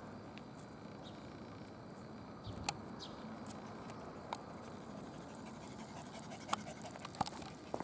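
Faint panting from a dog on the move, with scattered footsteps and a few sharp clicks on an asphalt street.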